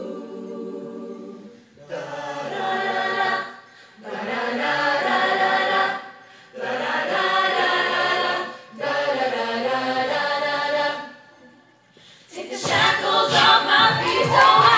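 A small vocal choir singing a gospel song in four phrases with short breaths between them, after a held chord fades away. Near the end the audience breaks into loud cheering and shouting.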